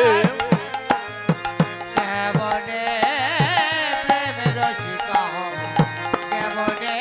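Instrumental break in devotional kirtan music: a hand drum plays steady strokes with a deep booming bass, under a melody instrument holding wavering notes.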